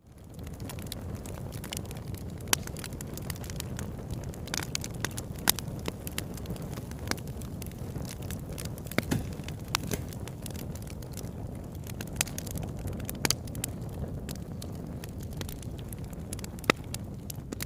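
Wood fire burning: a steady low rush with frequent irregular sharp crackles and pops. It fades in at the start.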